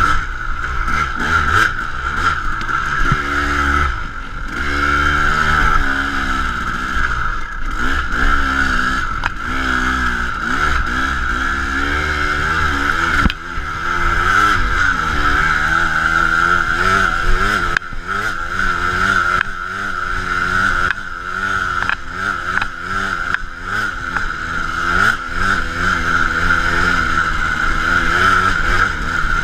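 KTM 250 dirt bike engine revving up and down again and again under the rider's throttle on a trail, with brief dips as the throttle is rolled off. A steady hiss runs over it.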